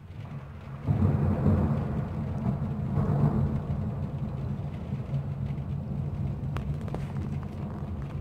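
Thunder: a sudden crack about a second in that rolls on as a long, low rumble, slowly easing off.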